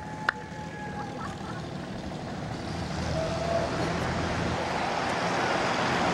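Road vehicle noise from the street, a broad hiss that grows steadily louder through the second half. A single sharp click comes just after the start.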